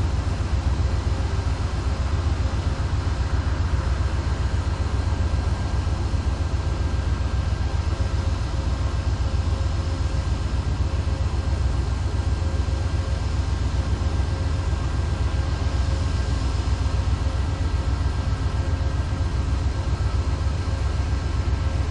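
Amtrak GE Genesis diesel locomotive idling while stopped, a steady low rumble with a faint steady hum above it.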